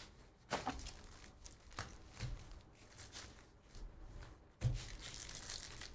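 Trading-card box and pack wrappers being handled and opened: scattered short rustles, crinkles and clicks of foil and cardboard, with a thump late on.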